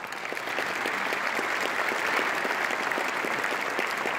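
Large audience applauding in a hall: dense, steady clapping that builds up just before and holds on evenly.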